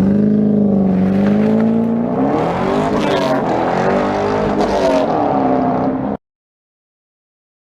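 C5 Corvette Z06's V8 engine revving, its pitch climbing at the start and then rising and falling. It cuts off suddenly about six seconds in.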